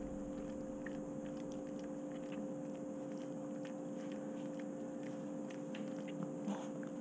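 Faint clicks and scrapes of a small chihuahua-type dog's claws pawing at the bottom of a door, over a steady low hum.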